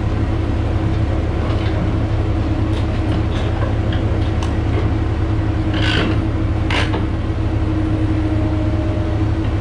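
A heavy engine running steadily, with two short metal clanks about six and seven seconds in as a scrap grapple takes hold of a steel frame and lifts it off a flatbed trailer.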